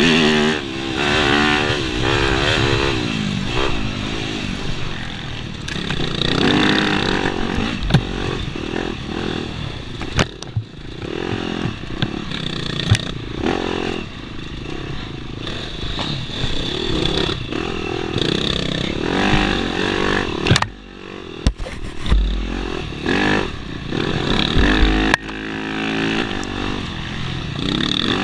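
Dirt bike engine revving up and down as the throttle is worked through the gears on a rough trail, with knocks and clatter from the bike over bumps. The engine drops off briefly a little past two thirds of the way through, then picks up again.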